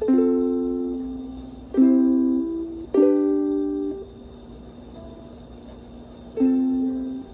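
Ukulele strummed slowly in single chords, four strums in all, each left to ring and fade, with a pause of about two seconds before the last.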